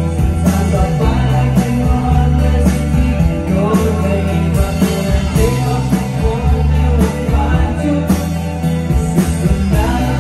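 A live rock band playing: electric guitar, bass guitar and drums, loud and continuous.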